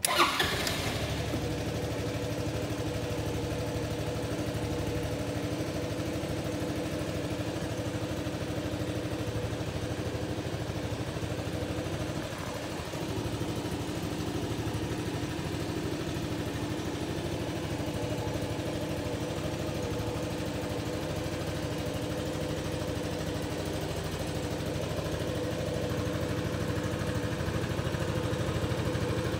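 Honda Helix scooter's engine, a single-cylinder four-stroke, starting up at the beginning and settling into a steady idle.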